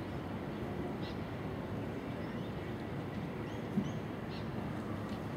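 Steady low outdoor background rumble with a few faint, short bird chirps scattered through it, and one brief soft bump just past the middle.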